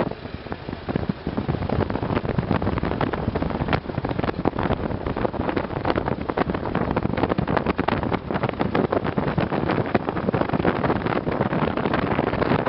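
Wind rushing and buffeting the microphone of a motorcycle-mounted camera at road speed, over the motorcycle's running engine.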